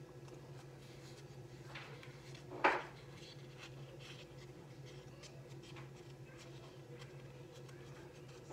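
Fingers rubbing and handling craft-foam flower petals: soft scratchy rubbing with faint ticks, and one brief louder rub a little under three seconds in, over a steady low hum.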